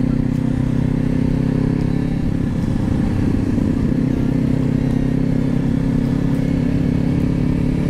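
Parallel-twin sport motorcycle engine running at a steady cruising speed, heard from the rider's seat, with a constant pitch and wind and road rumble underneath.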